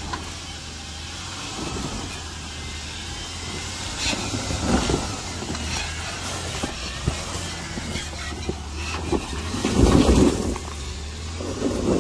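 Off-road vehicle engine running low and steady as it crawls over a rocky obstacle. Scattered knocks and scrapes come through, and the engine gives a louder, brief surge about ten seconds in.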